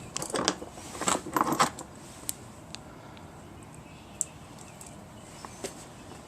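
Light metal clinking and rattling of hand tools and small metal parts: a quick cluster in the first couple of seconds, then a few scattered single ticks.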